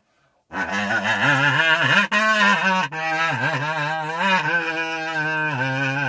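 Kazoo buzzing an improvised, low-pitched sung melody that slides and wavers in pitch. It comes in about half a second in and breaks off briefly twice around the middle.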